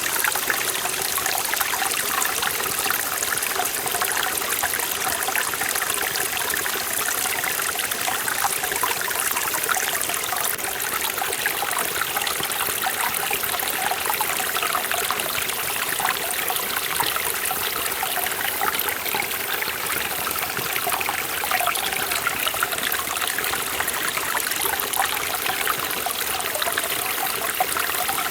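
Mountain stream in a forest valley flowing over rocks: a steady, even rush of water with fine splashing and trickling.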